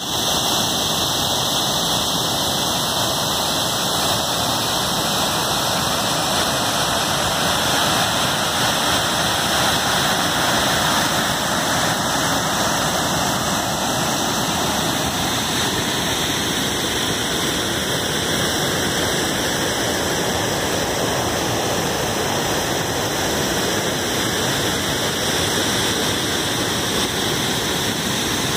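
Waterfall plunging over rock into a pool: a loud, steady rush of falling and churning water.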